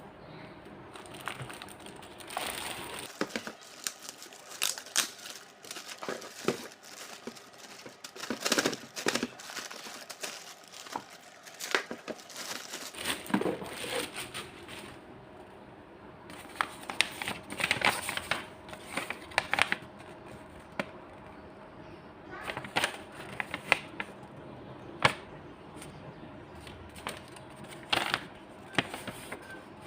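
Plastic packaging crinkling and tearing as it is handled, in irregular clusters of sharp rustles and crackles with short pauses between them.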